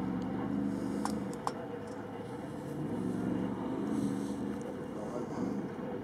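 A Range Rover's V8 engine running on the course, its note swelling and fading in waves as the driver works the throttle. Two short clicks come about a second in.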